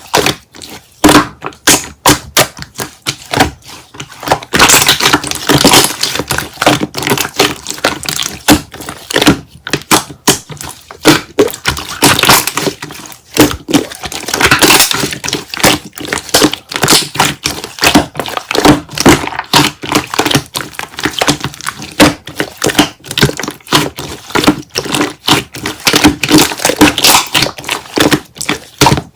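Slime being squeezed and pressed by hand, making rapid, irregular clicks and pops.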